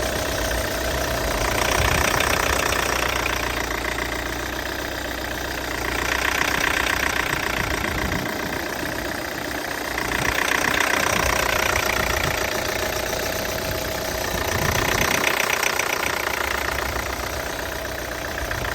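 Peugeot 508 SW 2.0's engine running with a strange noise that swells and fades in slow cycles, about every four and a half seconds. The owner does not know what fault it is the sign of.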